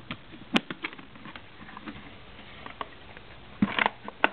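Scattered light clicks and knocks of a small portable typewriter being handled and shown: a sharp click about half a second in, a few light taps after it, and a cluster of knocks near the end.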